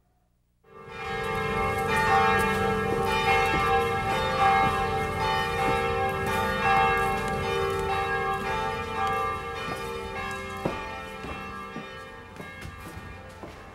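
Church bells ringing: many overlapping tones come in suddenly just under a second in, hang on and slowly fade, with a few light knocks toward the end.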